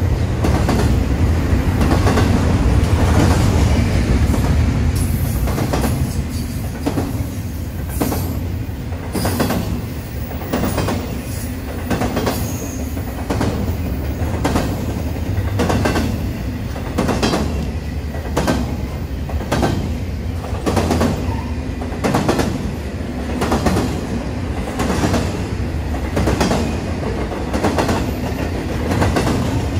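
Train wheels running over rail joints: a steady low rumble with a regular clickety-clack, a little more than one click a second, that becomes distinct about seven seconds in.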